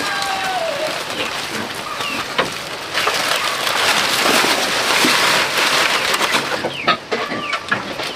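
A rooster's crow ends with a falling tail about a second in, then a dense crackling rustle of dry leaves being pushed and stuffed into a slatted bamboo coop. Short chirps from birds near the end.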